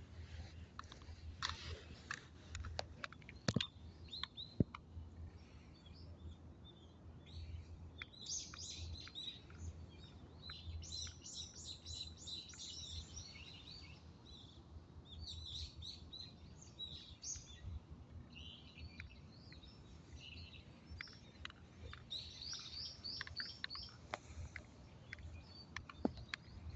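Small birds chirping, with bursts of fast repeated high notes, against scattered sharp clicks and a low background hum.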